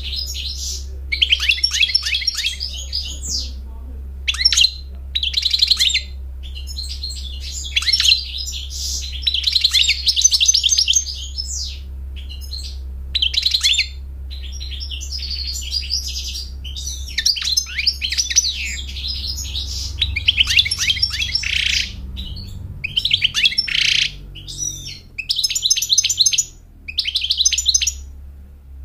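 European goldfinch singing: phrases of fast, high twittering and trills, each a second or two long, with short pauses between.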